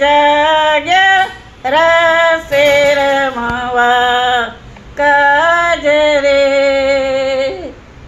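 A woman singing a song unaccompanied, in three long drawn-out phrases with short breaks between them.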